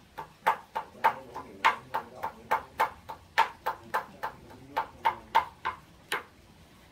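Metal lid of a rice pot on a wood fire clinking and rattling as steam from the boil lifts and drops it, about four quick metallic clinks a second, stopping about six seconds in.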